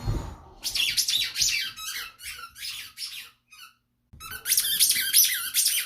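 Squeaky tennis ball (KONG SqueakAir) squeaking rapidly and repeatedly as a Malinois puppy chomps on it, in two runs of quick high squeaks with a short pause between them.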